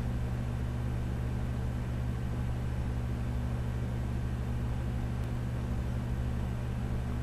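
A steady low hum with a faint even hiss, unchanging throughout: background room tone.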